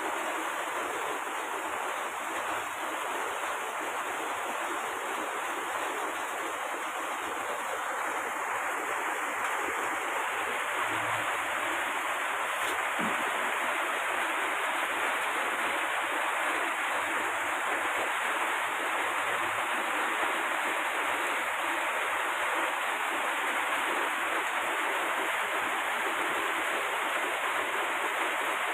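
Heavy rain falling steadily, an even hiss that grows a little louder about eight seconds in.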